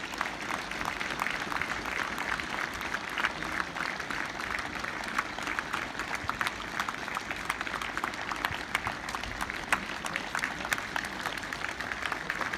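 Football crowd applauding: many hands clapping steadily.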